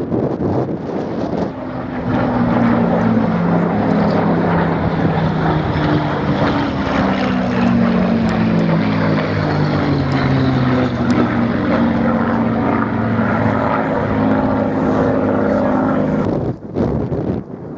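Piston engine of a Second World War propeller fighter passing low: a steady engine drone that comes up about two seconds in and slowly drops in pitch as the aircraft goes by, falling away sharply near the end.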